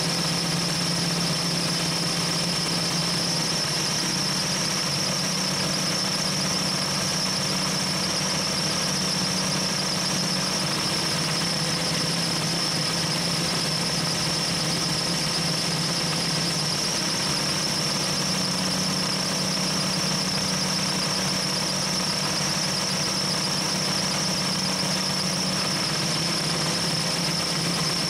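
Compressed air hissing steadily through an inflator chuck into a Jeep tire, with a high whistle over the hiss. Underneath, a steady low hum from the engine, held at about 2,000 RPM to drive the onboard air compressor, a converted Sanden A/C compressor.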